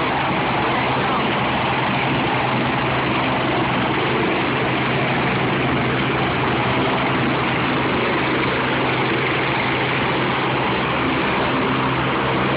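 Life-flight medical helicopter running steadily at close range, its engine and rotor making a loud, even noise with no change in pitch or level.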